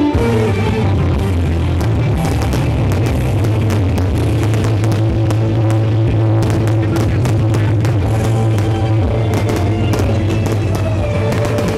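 Loud rock music playing over a fireworks display, with irregular sharp firework bangs and crackles, thickest in the second half.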